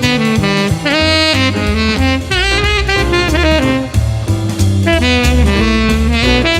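Jazz music with a saxophone playing a melody with bending notes over bass and drums.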